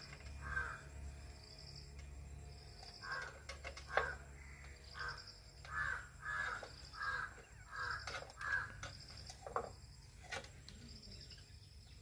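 A bird, crow by its call, cawing in a quick series of short calls about two a second, most of them in a run through the middle. A few sharp clicks are heard among the calls.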